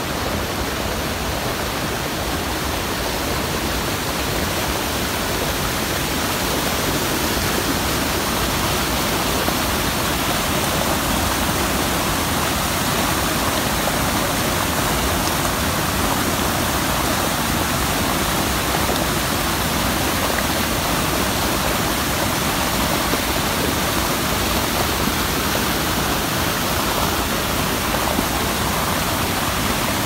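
Rocky mountain stream and small waterfall: water rushing over rocks and pouring into a pool, a loud steady hiss that swells a little a few seconds in.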